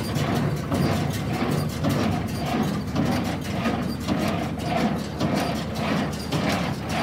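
Hesston small square baler running, its drives and mechanisms clattering in a steady rhythm over a steady low hum.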